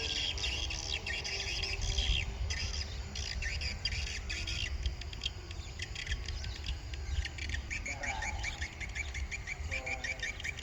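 Birds chirping and squawking in quick repeated notes over a steady low rumble, with a brief lower call about eight seconds in.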